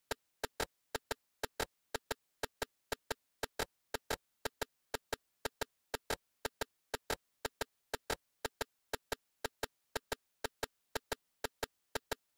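A rapid, uneven series of sharp clicks, about three to four a second, with silence between them.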